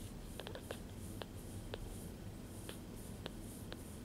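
A newborn kitten purring close up: a steady low rumble with a soft rasp about twice a second, and a few small sharp clicks scattered through.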